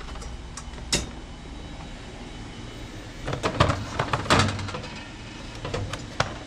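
Metal grill cooking grates clattering and knocking as they are handled and set in place: one sharp knock, then a cluster of clanks a couple of seconds later, and a last knock near the end.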